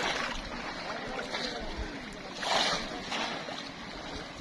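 Splashing of shallow river water as bamboo polo fish traps are plunged and pushed through it by people wading, in several short bursts with the loudest about halfway through. Faint voices are heard behind.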